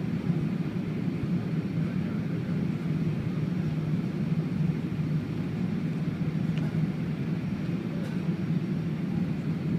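Steady low rumble of cabin noise inside an Airbus A380-800 coming in to land: airflow and the hum of its Rolls-Royce Trent 970 engines, heard from a window seat behind the wing.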